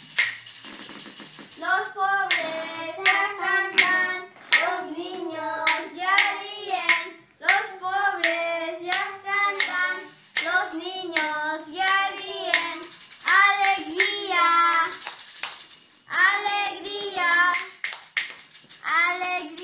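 Young voices singing a Spanish Christmas carol, with a tambourine shaken in quick jingles along with it; the tambourine stops about two seconds in and comes back about halfway through.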